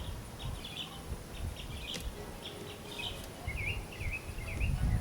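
Small birds chirping in short repeated calls, over a low uneven rumble on the microphone, with a single sharp click about two seconds in.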